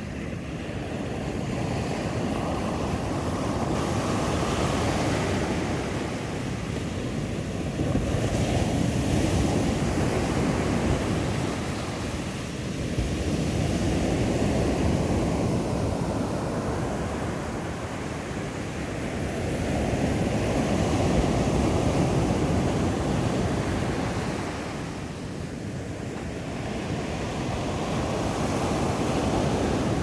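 Sea surf breaking on a sandy beach in the swell after a typhoon. The roar rises and falls every five to seven seconds as each wave breaks and its foam washes up the sand.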